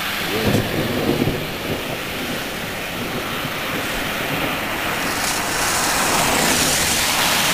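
Steady rushing noise of thunderstorm rain and wind against the car, heard from inside it.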